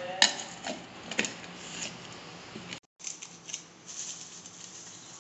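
A few sharp clicks and light rattles of utensils and dry ingredients being handled, most of them in the first two seconds. The sound cuts out completely for a moment near the middle.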